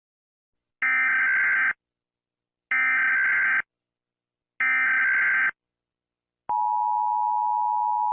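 Emergency Alert System tones: three bursts of SAME digital header data, about a second each with short gaps between, then the steady two-tone attention signal starting about six and a half seconds in. These tones announce a civil danger warning.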